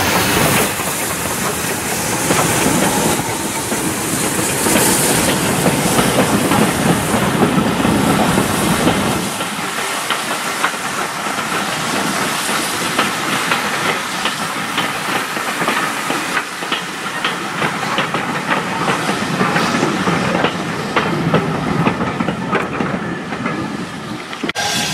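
BR Standard Class 2 2-6-0 steam locomotive No. 78019 passing with its train of coaches. For the first nine seconds or so there is a heavy rumble with steam hiss as the engine goes by, then a steady clickety-clack of the coach wheels over the rail joints as the carriages pass.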